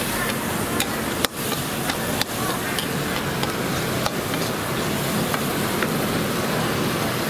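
Food frying at a street stall: a steady sizzle broken by irregular sharp clicks and knocks of cooking utensils, the loudest about a second in.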